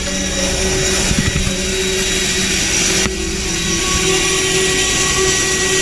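Boeing CH-47 Chinook's turbine engines and twin rotors running, heard close up from its cargo cabin: a dense roar with a steady high whine over it. The sound shifts abruptly about three seconds in.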